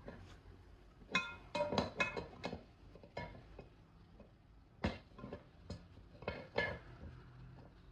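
Irregular metal clinks and taps with brief ringing, a dozen or so, from fitting a handle onto a die-cast saucepan with screws and a screwdriver.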